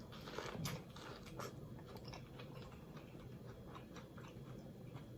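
A person chewing food close to the microphone, quietly: a run of small wet mouth clicks, a few sharper ones in the first second and a half.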